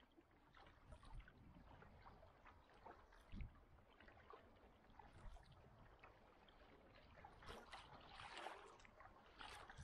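Faint water sounds of a kayak being paddled on the sea: the paddle blades dipping and splashing, irregularly, with a denser run of splashing near the end and a single low knock about three seconds in.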